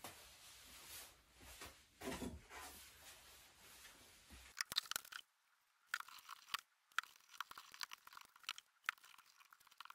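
Faint handling noises: a thin plywood sheet is picked up and laid on a melamine-coated board, making scattered light clicks and scraping, rustling sounds in the second half.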